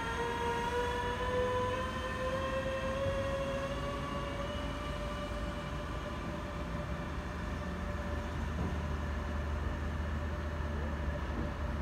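DB Class 146 electric locomotive pulling a double-deck train away from the station. Its traction drive gives a whine of several tones that climbs slowly in pitch as it gathers speed, over a low rumble, and grows fainter near the end as the train draws off.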